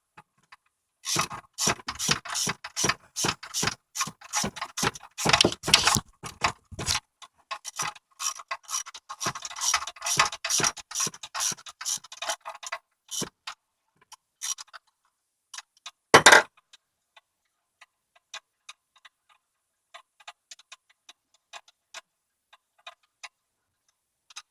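Socket ratchet with an extension clicking as it is worked back and forth, tightening spark plugs back into the engine. Fast, dense clicking for the first dozen seconds, then slower scattered clicks, with one loud knock about sixteen seconds in.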